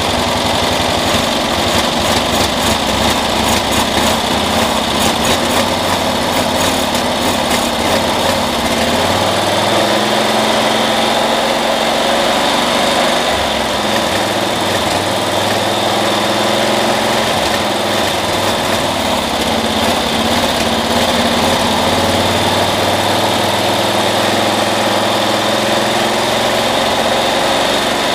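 Onan engine of a 1972 Cushman pickup running steadily on a freshly rebuilt carburetor, its speed shifting slightly a couple of times. The owner has messed up the throttle linkage, so stepping on the gas does almost nothing.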